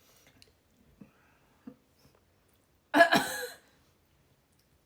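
One loud, short cough about three seconds in, after a couple of faint clicks.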